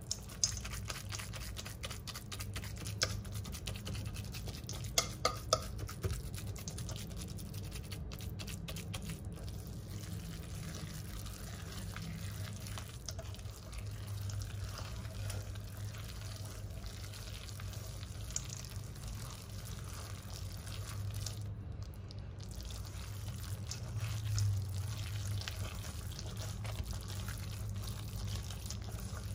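Kitchen utensils and bowls being handled during home baking: light clicks and taps, most of them in the first six seconds, then softer handling noise, over a steady low hum.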